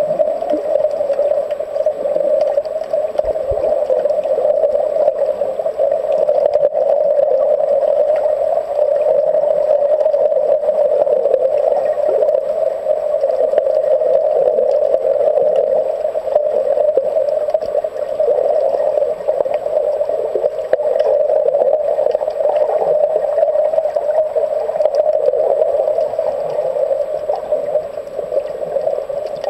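Steady, muffled underwater noise picked up by a camera held below the surface, a constant rushing hum without breaks.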